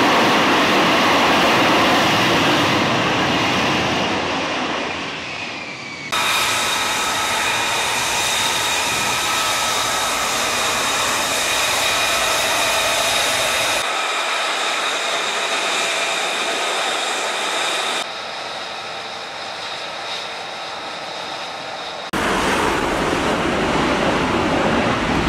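F-35B Lightning II jet engine noise, spliced from several shots: a loud rushing blast, then from about six seconds a steadier high whine with several held tones over the rush. The sound changes abruptly at each cut.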